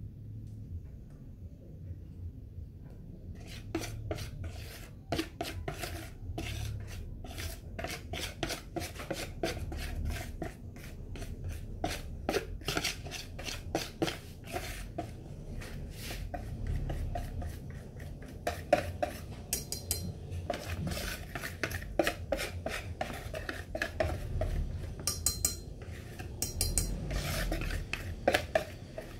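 Wire whisk scraping and clicking against a plastic mixing bowl as cake batter is scraped out into an aluminium rice-cooker pot. The quick, uneven scraping strokes start about three seconds in and keep going.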